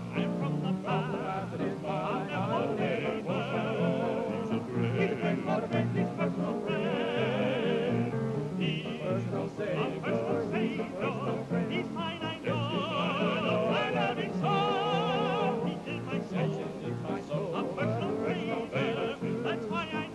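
Gospel music: voices holding notes with wide vibrato in harmony over an accompaniment with a moving bass line.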